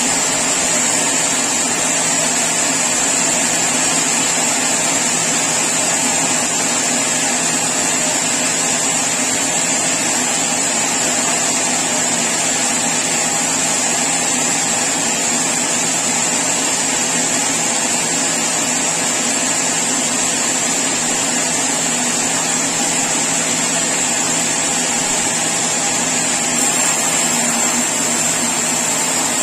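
Sawmill saw running steadily, a continuous machine noise with a steady high-pitched whine over it.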